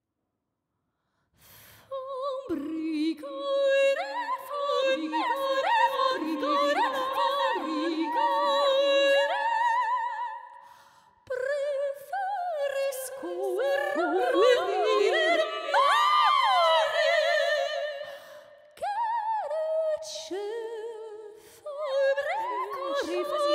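Female voice singing wordless held notes with vibrato and pitch glides, processed by live electronics into several overlapping vocal lines like a small choir. It starts after about a second and a half of silence and breaks off briefly a few times.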